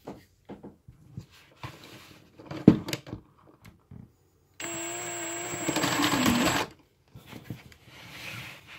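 Milwaukee cordless drill spinning a LEGO Technic model of a Toyota 4A-GE engine: the drill motor's whine over the clatter of the plastic pistons, timing chain and gears. It is loudest for about two seconds just after the middle, then runs on more quietly with a light rattle. Before it, scattered clicks and knocks of plastic parts as the drill is fitted to the crank gear.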